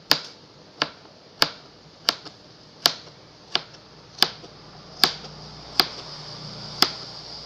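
Kitchen knife dicing cucumber into small cubes on a cutting board: about ten sharp taps of the blade hitting the board, roughly one every three-quarters of a second.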